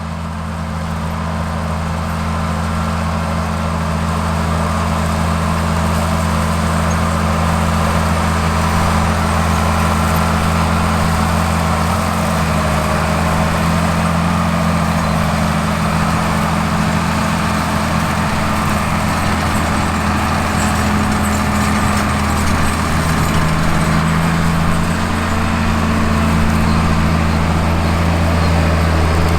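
Diesel engine of a large 1990s John Deere farm machine running steadily. It grows louder over the first several seconds as it comes closer, then holds a steady level.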